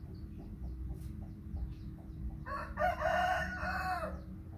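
A rooster crowing once, a single call of just under two seconds starting past the middle, heard over a faint steady hum and soft chirps repeating several times a second.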